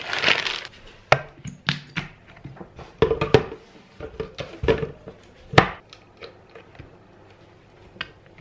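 A short rustle, then the clunks and knocks of a glass blender jar being handled and fitted onto its plastic base, the loudest knock about five and a half seconds in, and a click from the control dial near the end. The motor does not start, and the owner wonders whether the blender is broken.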